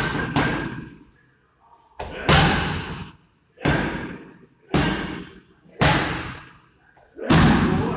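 Gloved strikes smacking into leather Muay Thai pads: a string of sharp slaps, two in quick succession at the start and then one about every second, each echoing briefly in a large hall.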